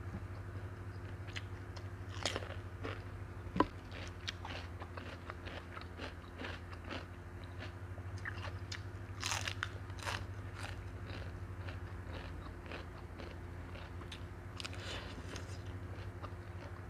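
Close-up mouth sounds of someone chewing a Thai noodle salad with crisp fresh lettuce: many small wet crunches and clicks, with a sharp click about three and a half seconds in and a burst of crunching near the middle. A steady low hum runs underneath.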